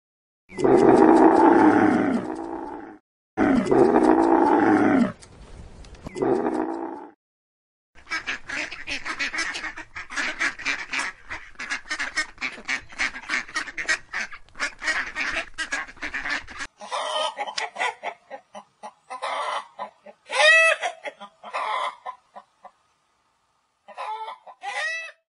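A camel's long, low grumbling bellow, heard twice, followed by a flock of geese honking and cackling in quick succession, then chickens clucking with a few rising-and-falling calls.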